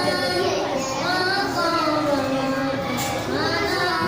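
A child's voice singing a slow melody in long, wavering held notes, in a room that echoes a little.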